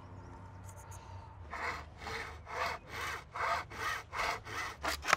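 Japanese hand saw cutting through a bamboo cane, a regular run of rasping strokes about two and a half a second, starting about a second and a half in.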